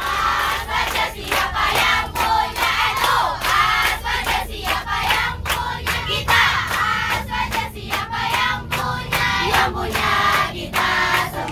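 A busload of teenage girls singing and shouting together, many voices at once, over the low rumble of the moving bus inside its cabin.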